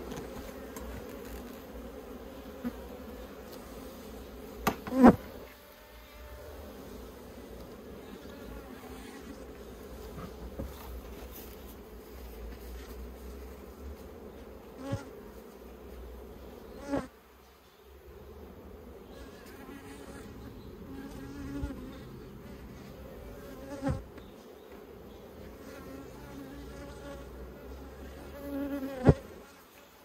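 Honey bees buzzing in flight around a closed-up hive, a steady wavering drone. Several sharp knocks cut through it, loudest about five seconds in and near the end.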